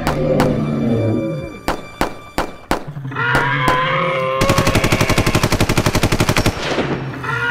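Gunfire sound effects: several single shots, then about 4.5 seconds in a rapid machine-gun burst lasting about two seconds.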